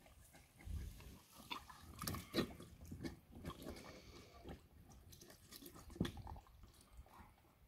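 Dog mouthing and biting at a rubber toy in a shallow paddling pool, with faint, irregular sharp clicks of its jaws and small splashes of water.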